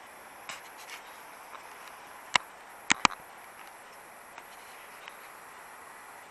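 Steady rush of river water spilling over a low weir. Three sharp clicks sound over it, one a little past two seconds in and a close pair about three seconds in, with a few fainter ticks near the start.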